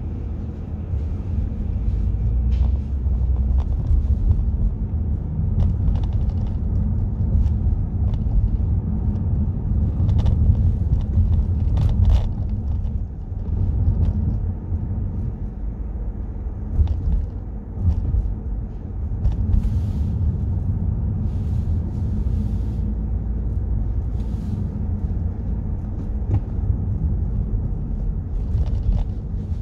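Steady low rumble of a car's engine and tyres heard from inside the cabin while driving slowly in traffic, with a few brief clicks and knocks scattered through.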